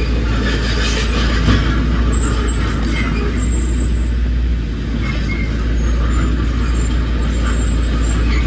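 Heavy diesel earthmoving machinery running steadily with a deep, continuous engine drone.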